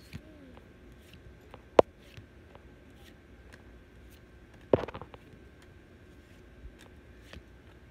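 Close handling noise of a hand fumbling at a phone: scattered light clicks, one sharp click about two seconds in, and a short burst of knocks and rustling about halfway through.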